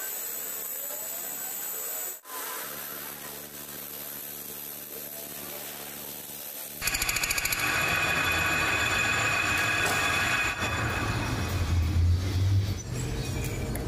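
A steady machine hum, then about seven seconds in a louder power tool starts abruptly and runs with a harsh, ringing noise, working metal.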